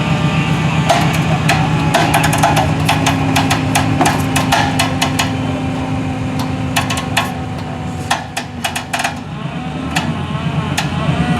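A vehicle engine running steadily, with many sharp, irregular knocks and clanks over it.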